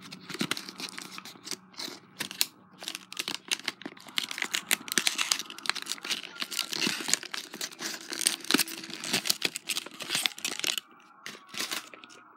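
Fidget spinner packaging being handled and opened by hand: a dense, irregular run of crinkling, tearing and rustling crackles that eases off near the end.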